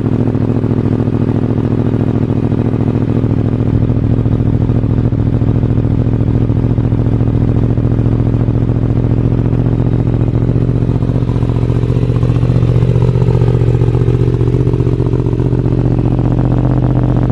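A Yamaha YZF-R1's crossplane inline-four engine idles steadily through an Akrapovic slip-on exhaust. It is loud and even throughout.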